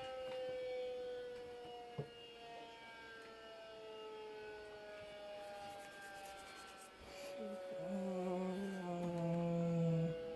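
Siren sounding without rotation, its pitch slowly falling as it winds down. A click comes about 2 s in. Near the end a second, lower steady tone comes in.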